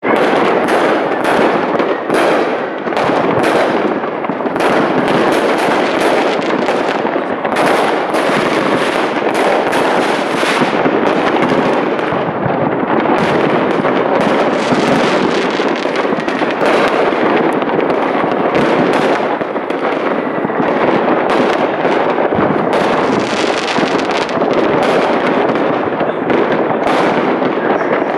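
Many fireworks and firecrackers going off at once, a dense, unbroken crackle of overlapping bangs and pops.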